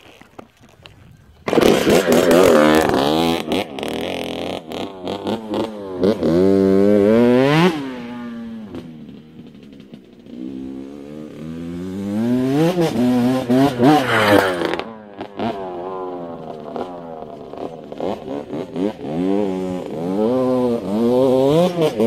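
Dirt bike engine coming in loudly about a second and a half in, then revving up and down as the bike rides close past the ground-level microphone several times.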